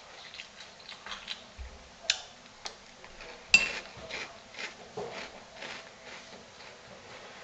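Close-up chewing of crunchy Reese's Puffs cereal, with irregular small crackles, and a metal spoon clinking against the cereal bowl twice with a short ring, about two and three and a half seconds in.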